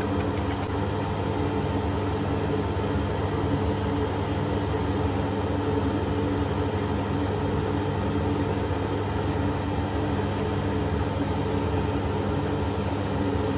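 Steady low hum with a hiss over it, unchanging throughout.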